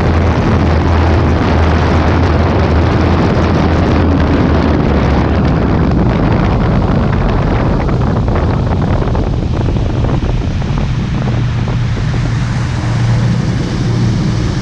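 Yamaha AR230 HO jet boat running at speed: its twin four-stroke engines and jet drives with water rushing and wind buffeting the microphone. The rushing eases over the last few seconds as the boat slows down.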